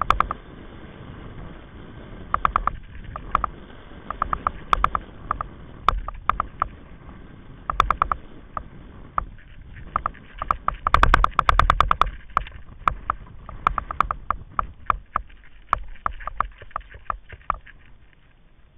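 Kite buggy rolling fast over hard, rippled beach sand: a steady low rumble with irregular rattling clicks from the buggy, and a dense burst of rapid rattles about eleven seconds in.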